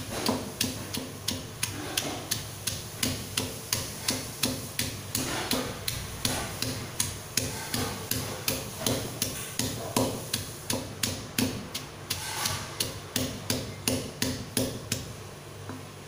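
Stone pestle pounding bird's-eye chilies in a stone mortar, with steady thuds about three a second that stop shortly before the end.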